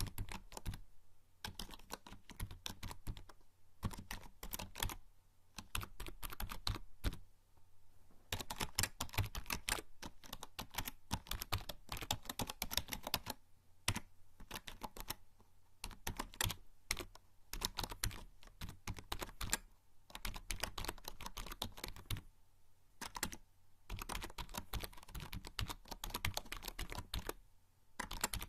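Typing on a membrane computer keyboard: quick runs of soft key clicks, broken by brief pauses every few seconds.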